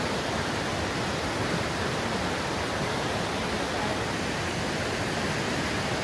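Rushing river water, a steady even hiss with no breaks.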